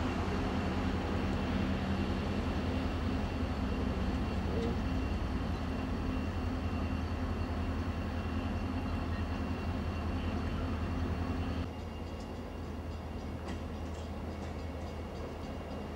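Departing passenger train: the steady low drone of diesel-electric locomotive CLP12 hauling stainless-steel carriages, with rolling wheel noise. About twelve seconds in the sound drops and turns quieter, with a few sharp clicks of wheels over rail joints and points.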